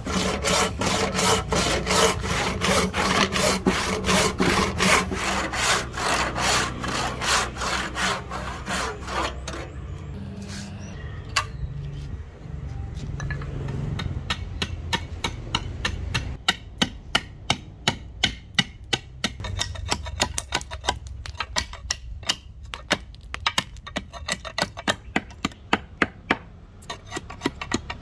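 Hand tool cutting a rosewood axe-handle blank in quick back-and-forth strokes, about three a second, loud for the first ten seconds. After a quieter stretch, sharper, evenly spaced strokes resume about sixteen seconds in.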